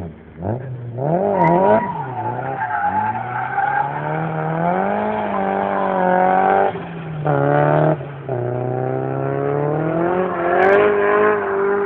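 Drift car's engine held at high revs, pitch rising and falling with the throttle as the car slides through a bend, with brief lifts off the throttle about seven and eight seconds in. Tyres scrub and squeal under the slide.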